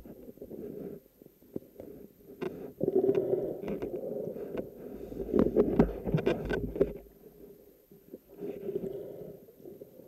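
Muffled underwater sloshing and rumbling as a spearfishing diver swims through dense river weed, with scattered clicks and scrapes of weed brushing the camera housing, loudest in the middle stretch.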